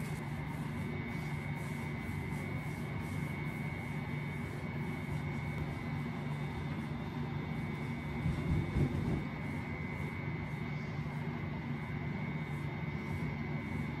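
A steady mechanical drone with a low hum and a faint constant high whine, with a brief low bump a little past halfway.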